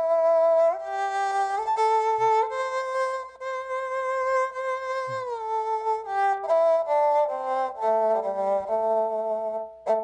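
Keyboard-played erhu sound playing a slow melodic phrase, its notes joined by slides. A long held note in the middle gives way to quicker, shorter notes that dip lower before rising again.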